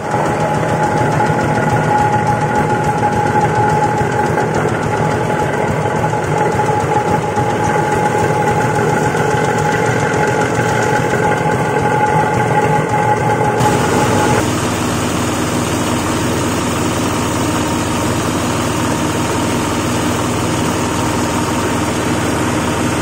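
Rice-husk grinding machine running steadily with its engine. A steady whine over the running noise stops abruptly about fourteen seconds in, leaving a lower, even hum.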